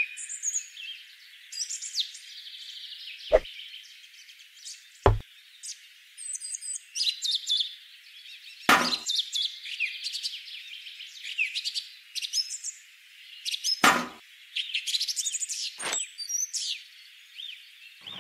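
Small birds chirping and trilling throughout, broken by about five sharp taps and knocks as small model parts and a tin bucket are set down on a table.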